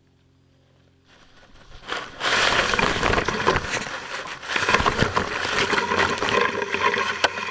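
Leaves and plant stalks rustling and scraping against the rocket's body and onboard camera as the rocket is pulled out of the vegetation, starting about two seconds in, close and loud with many sharp clicks.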